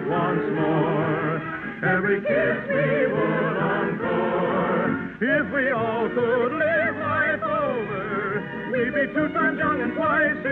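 Singers with wide vibrato and an orchestra performing an operetta number, the music running on without a break.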